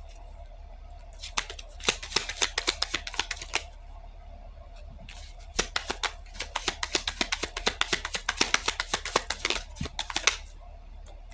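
A deck of cards being shuffled: two runs of rapid crisp clicks, the first about two seconds long and the second about five.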